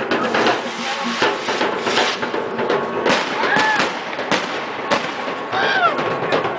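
Street procession of costumed Chichimeca dancers and a crowd: irregular sharp cracks and beats over a busy wash of crowd noise. Two short high calls rise and fall in pitch, about three and a half and six seconds in.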